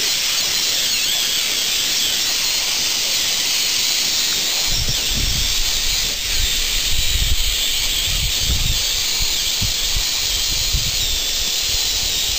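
Lego RC motors and their gear trains driving an 8x8 Lego Technic truck: a steady high whine and hiss with a slightly wavering pitch. Irregular low rumbles join in from about five seconds in.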